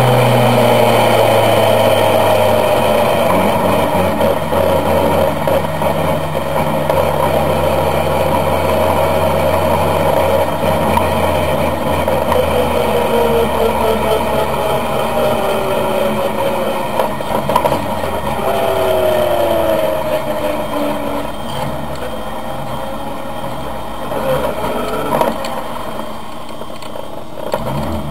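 Caterham R400's engine heard from the open cockpit, its note falling as the car slows at the start, then running at low revs while driven slowly. The engine drone drops lower and quieter in the last third.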